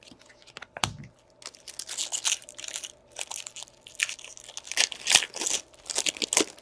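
Foil wrapper of a hockey card pack being torn open and crinkled by hand, in irregular crackly bursts, with one sharp click just under a second in.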